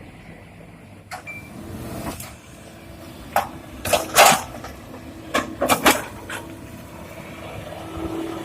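Hydraulic excavator's diesel engine running steadily under a run of sharp clanks and knocks, as of rocks striking steel, loudest around four and six seconds in.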